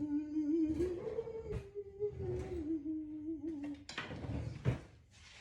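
A woman humming one held, slightly wavering note for about four seconds, with a few knocks of cooking around it; a sharper knock comes near the end.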